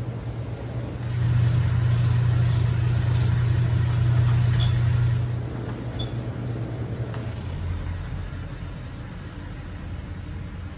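Toyota Tundra pickup's engine running just after being started, a steady low hum that is louder for the first few seconds and then settles to a quieter idle.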